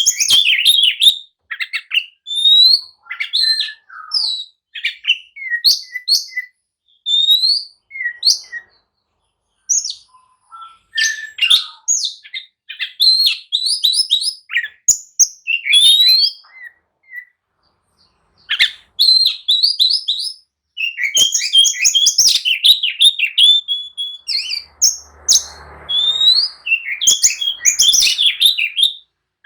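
Oriental magpie-robin singing an excited, aggressive song: rapid phrases of sharp chirps and quick rising whistles, broken by a few short pauses, the full combative song that keepers use to stir other males into answering.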